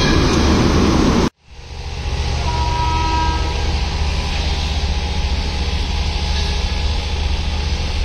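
WAP-5 electric locomotive running loudly at close range, stopping abruptly just over a second in; then a quieter steady rumble with a faint distant horn toot about two and a half seconds in.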